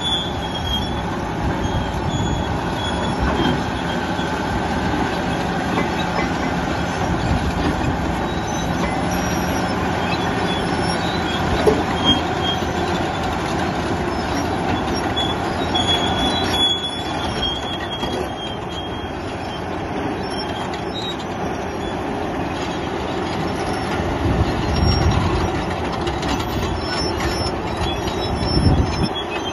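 Komatsu D375A crawler bulldozer pushing earth: its diesel engine runs hard under load, with the steel tracks clanking and giving short high squeals.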